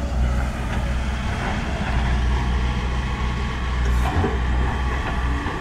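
Volvo EC210D crawler excavator's diesel engine running steadily under load as the bucket digs into sticky clay, with a faint knock about four seconds in.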